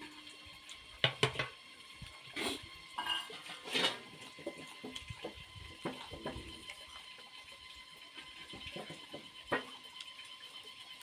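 Close-up eating sounds: a mug and plate clinking about a second in, a couple of short sips or rustles, then small crackles of raw greens and herbs being handled and chewed, with one more sharp click near the end.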